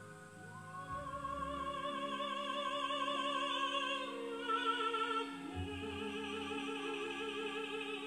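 Recorded operatic singing with orchestral accompaniment played back through Tannoy Cheviot loudspeakers and picked up in the room: long held notes with a wide vibrato, moving to new pitches about four seconds in.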